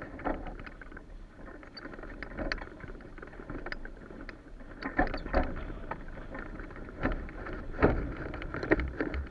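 Wind buffeting the microphone of a camera mounted on a Wills Wing Sport 2 hang glider, with irregular sharp knocks and rattles from the glider's frame and sail as it is walked over rough ground; the loudest knocks come about five, eight and nine seconds in.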